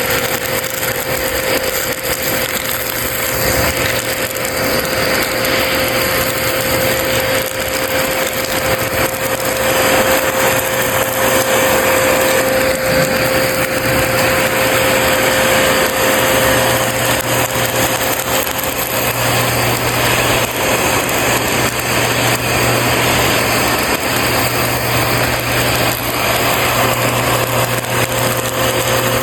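Bissell CleanView Rewind upright vacuum running steadily with a high motor whine, its open hose sucking up crunchy debris such as beads and coins with a dense crackling rattle.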